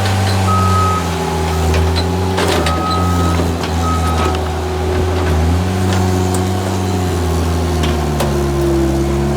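Skid steer engine running hard, its pitch dipping and climbing again as the machine works. A backup alarm beeps a few times, with occasional knocks.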